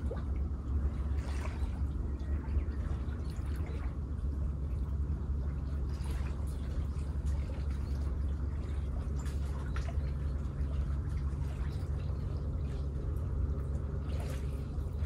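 Shallow water lapping and trickling at the shore, over a steady low rumble, with a few faint splashes.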